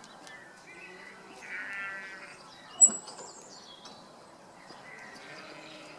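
Faint background noise with a short buzzy animal call about one and a half seconds in, then a single sharp click a little before the middle.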